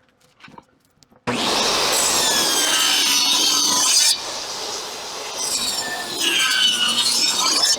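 Power saw ripping a board lengthwise, the blade whining under load as it cuts through the wood. It cuts in sharply about a second in, eases off for a couple of seconds midway, then bites hard again until it stops near the end.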